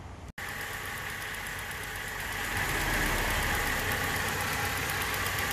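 Car engine idling steadily with its new radiator fitted and coolant refilled, running to test for overheating and leaks. It grows a little louder about two and a half seconds in.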